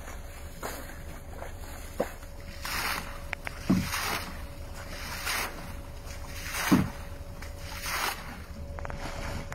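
Water sloshing and splashing out of a swamped wooden rowboat, in repeated bursts about a second or so apart, with two heavier thumps of the water surging in the hull; wind rumbles on the microphone underneath.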